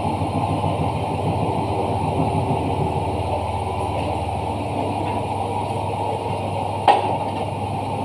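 Steady drone of running machinery, even throughout with a low hum, broken by one sharp knock about seven seconds in.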